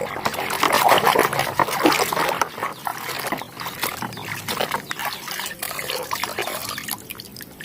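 Water splashing and sloshing with busy rubbing and scraping, as mud is washed off a toy vehicle.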